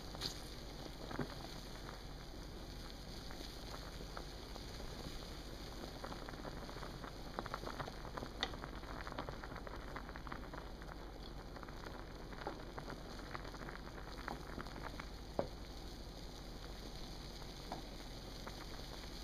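Water boiling in a pot: a steady bubbling hiss with scattered small pops and ticks.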